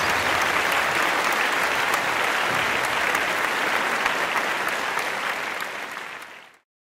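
Audience applause, a dense steady patter of many hands clapping, fading out near the end.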